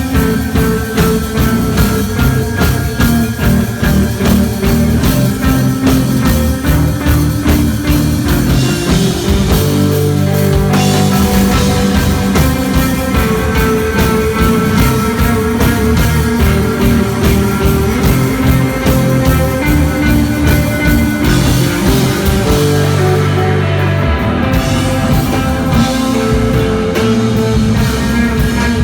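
Three-piece rock band playing live: electric guitar, bass guitar and drum kit in a loud, spacey instrumental jam with no singing.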